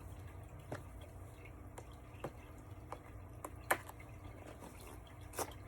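Scattered light clicks and taps of a cardboard blind box being handled and opened by hand, the sharpest about three and a half seconds in.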